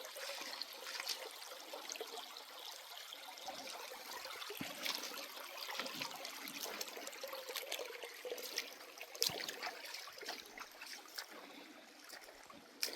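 Shallow, clear creek water trickling, with scattered small splashes and clicks.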